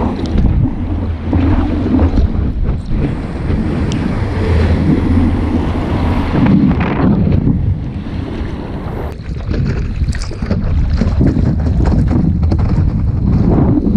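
Strong wind buffeting the microphone over the sound of surf and moving water, in rough, uneven surges.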